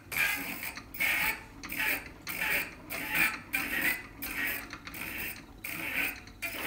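Wind-up horn gramophone's turntable mechanism spinning up to speed before the needle is set down, with a repeated mechanical rasp about twice a second.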